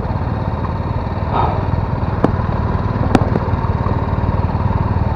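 Motorcycle engine running steadily at low speed, with two sharp clicks about a second apart midway through.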